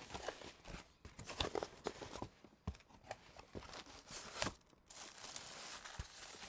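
Cardboard box and plastic packaging being opened and handled: irregular tearing, rustling and crinkling with scattered sharp clicks.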